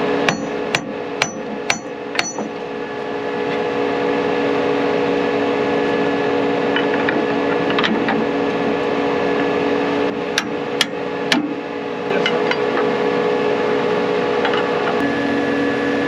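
Hammer blows on steel, five quick ringing strikes about half a second apart, then three more about ten seconds in, knocking at a stuck part on a tillage implement's shank. A tractor engine idles steadily underneath.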